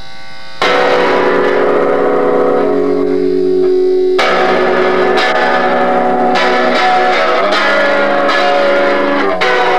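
Electric guitar music: a loud chord strikes about half a second in and rings on in long held notes, then another loud attack comes about four seconds in, followed by shorter struck notes and changing chords.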